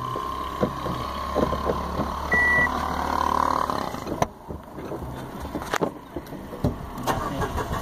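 Car cabin with the ignition on and the engine not yet running: a steady low hum, a single short electronic beep about two and a half seconds in, then a quieter stretch with a few sharp clicks.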